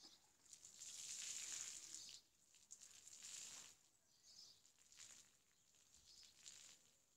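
Faint wet swishing of a soapy car-wash mitt, lifted dripping from its rinse bucket and rubbed over foamed paintwork. It comes in a few hissy surges, loudest in the first four seconds.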